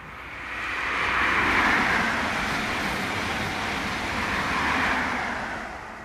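High Speed Train with Class 43 diesel power cars passing at speed: a swelling rush of noise that peaks as the leading power car goes by, rises again about five seconds in as the rear power car passes, then fades away.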